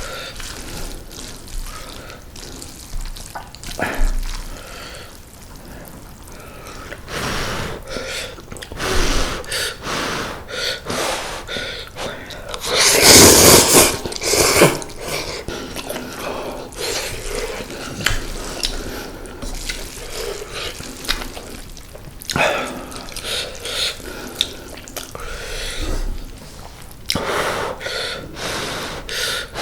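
Someone eating mala-tang instant noodles: wet slurping, chewing and mouth clicks, with one long, loud slurp about halfway through.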